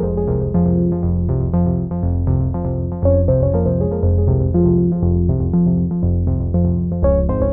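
Background music: a steady run of notes over a low bass line.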